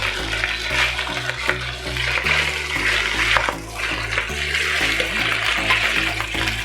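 Mustard greens sizzling and crackling in hot oil in a pan, with background music's low notes stepping underneath.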